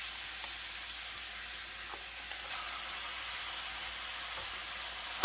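Chopped onions sizzling steadily in olive oil in a frying pan on the stove, with a faint tick about two seconds in.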